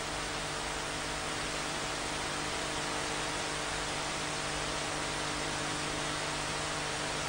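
Steady electronic hiss with a low mains hum from the audio chain, with no speech or other events.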